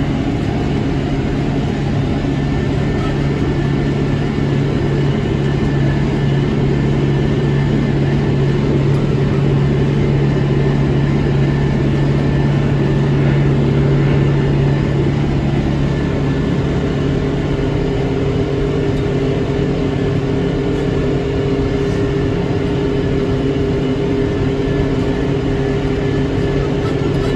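Tractor engine and John Deere 459 round baler running steadily under load while baling hay, a continuous drone. About halfway through, the low hum fades and a slightly higher-pitched hum takes over.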